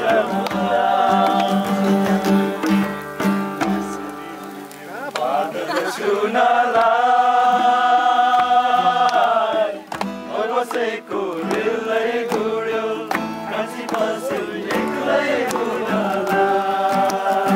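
A song: a singing voice holding long notes, one held for several seconds in the middle, over instrumental accompaniment.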